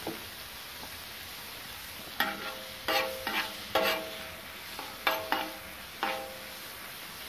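Mussels sizzling in hot oil in a cast-iron sadj pan while a metal spoon stirs them. From about two seconds in, the spoon knocks against the pan some seven times, each knock ringing briefly.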